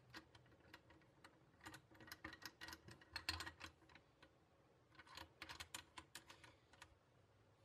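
Faint quick clicking from a shotgun's adjustable recoil pad as its knurled adjuster is turned by hand, in two clusters about two and five seconds in.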